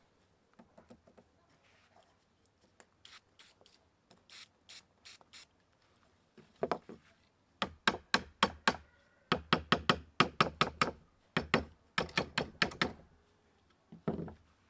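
Hammer striking the rusted steel chuck of an old hand drill held in a vise, to free the rust-seized chuck: a few light taps, then rapid runs of sharp strikes, several a second, and a single duller thump near the end.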